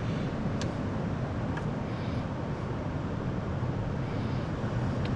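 Steady roar of ocean surf, with two faint clicks in the first two seconds.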